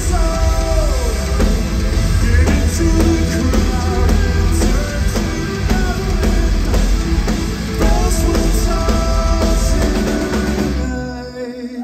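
Progressive metal band playing live: sung lead vocal over distorted guitar, heavy bass, keyboards and drum kit. The song stops shortly before the end.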